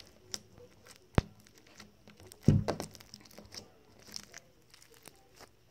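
Fingers poking and pressing a slime with bows on it against a table, making small sticky clicks and crackles. One sharp click comes about a second in, and a louder thump about two and a half seconds in.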